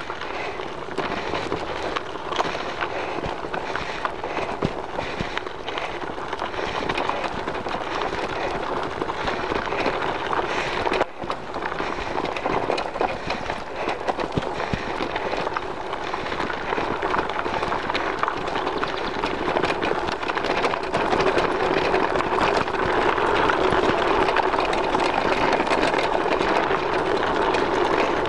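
Mountain bike riding over a loose gravel and dirt track: a continuous rattle of tyres crunching on stones and the bike clattering over the bumps. It grows louder in about the last third.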